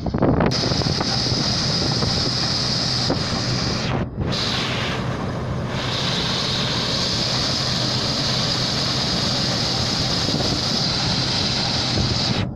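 Case IH 2388 axial-flow combine harvester running while harvesting corn: a steady, loud mechanical drone with a low engine hum and a high whine. It dips briefly about four seconds in.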